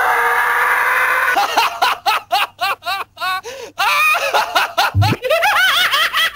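A cartoon character's loud, held shout, cut off about a second and a half in, then a long run of fast cackling laughter. There is a short low thump about five seconds in.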